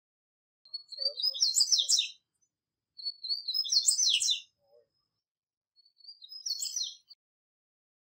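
Wild male double-collared seedeater (coleiro, Sporophila caerulescens) singing: three high, quick twittering song phrases, each opening with a thin lead-in note, a second or two apart, the last one shorter.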